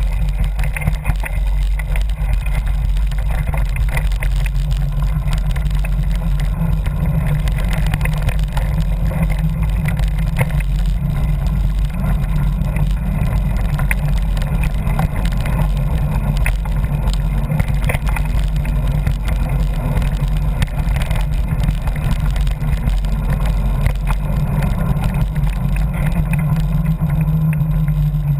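Wind rumbling over the microphone of a camera riding on a mountain bike down a dirt trail, with constant small rattles and knocks from the bike and mount over the bumpy ground.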